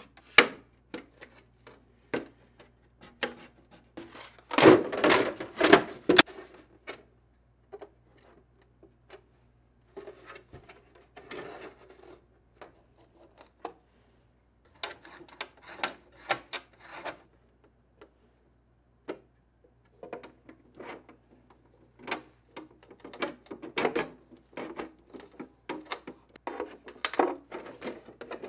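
Clear polycarbonate RC truck body being handled and worked with hand tools: irregular clicks, rubs and crackles of the thin plastic shell. The loudest burst comes about five seconds in. Near the end a metal body reamer twists into the shell to open a hole.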